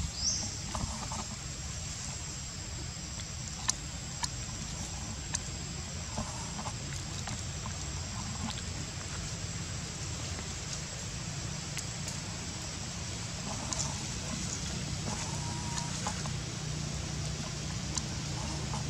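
Outdoor ambience: a steady low rumble with a thin, high, steady whine over it, a few sharp clicks around four to five seconds in, and several brief faint calls scattered through.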